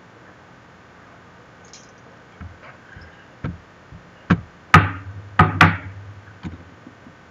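An irregular run of sharp knocks, starting about two and a half seconds in, several close together with the loudest about halfway through, each ringing briefly.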